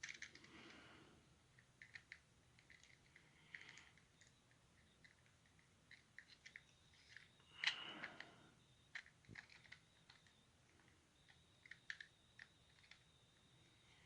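Faint, scattered small clicks and ticks, with a brief scrape at the start and a louder one about eight seconds in, as a small screwdriver and the little plastic and metal parts of an HO-scale model locomotive tender are handled during disassembly.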